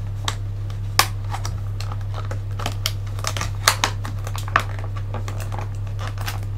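Irregular sharp clicks and crackles of stiff plastic blister packaging being handled and pried as an action figure's cape is worked free of it, over a steady low electrical hum.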